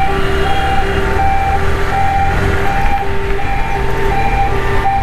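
Ambulance siren sounding a two-tone hi-lo wail, switching between a low and a high note a little more than twice a second, over a steady low rumble.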